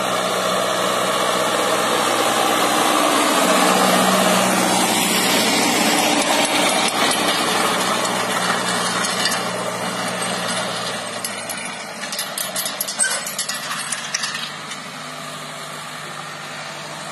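Tractor diesel engine running steadily as it pulls a 60-tine swinging harrow over tilled soil. It grows louder as it passes close, then fades as it drives away, with clattering rattles from about nine seconds in.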